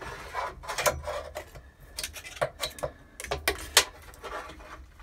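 Magnetic pickup tool tapping and scraping against the metal inside a 1971 Volkswagen Beetle's floor-tunnel shift-linkage opening as it probes for a dropped grub screw. It makes a scattering of light clicks and rubs, with a few sharper taps in the second half.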